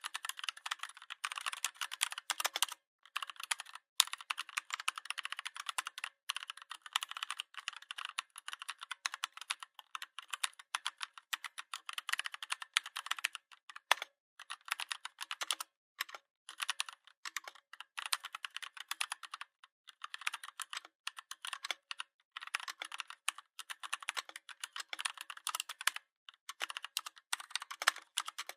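Fast typing on a Redragon 61-key mechanical keyboard: a dense run of key clicks that breaks off in short pauses every few seconds.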